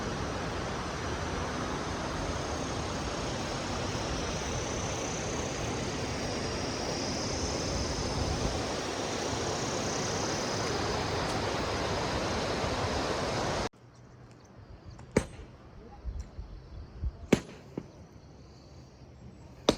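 Steady hiss of heavy rain. About three-quarters of the way through it cuts off suddenly to a much quieter background with a few sharp taps.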